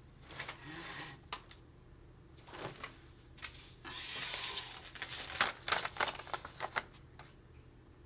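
Clothes rustling and being handled with scattered light knocks, then from about four seconds in a denser stretch of crinkling as a crumpled paper is unfolded.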